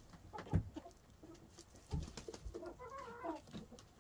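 Hens clucking, with one wavering call about three seconds in, and a few dull knocks.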